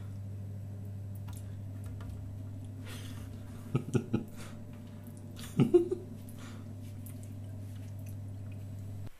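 A cat's paws knocking against a window pane: three quick soft thumps about four seconds in, then another louder cluster a little before six seconds. A steady low hum runs underneath and stops near the end.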